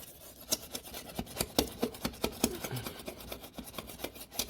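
Razor blade scraper stroking across a ceramic glass stovetop in short, repeated scrapes, a few a second, lifting off baked-on residue.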